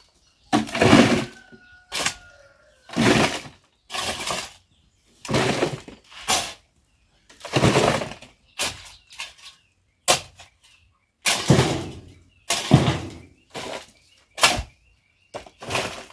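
A digging tool scraping and striking into loam soil in repeated, uneven strokes, about one a second, as soil is dug up to fill a bucket.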